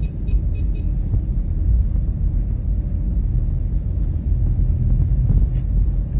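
Steady low rumble of a moving car heard from inside the cabin: engine and road noise while driving. A brief click near the end.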